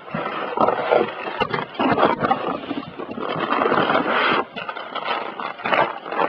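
Rustling and scraping of packaging and cables being handled, in uneven bursts.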